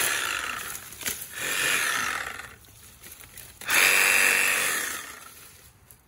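Small cordless one-handed pruning chainsaw cutting through bramble and briar stems in three bursts, the last the longest and loudest, with the motor whining under load.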